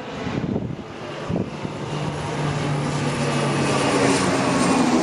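Propeller airplane flying by, its engine and propeller drone growing steadily louder over the last few seconds.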